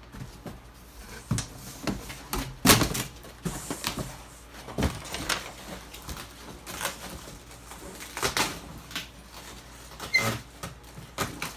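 Handling noises from a large RC boat hull: an irregular string of knocks, clicks and scrapes as it is turned over and its fittings are worked. The loudest knock comes about two and a half seconds in.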